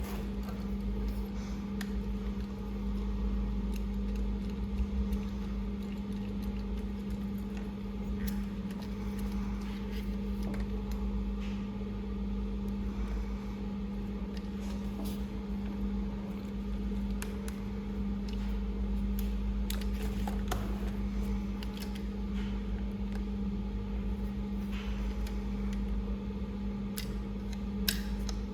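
Electric RC toy excavator's motor running with a steady hum, with scattered light clicks.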